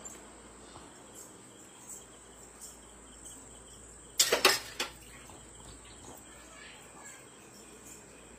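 Quiet room tone with a faint steady high whine and faint small ticks; a little over four seconds in, a brief loud rustling burst of handling noise from the handheld phone, with a smaller one just after.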